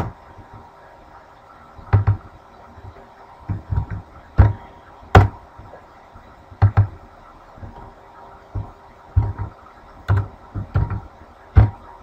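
Computer mouse clicks and keyboard keystrokes picked up by a desk microphone: about a dozen irregular strokes, some sharp clicks and some dull knocks, a second or two apart.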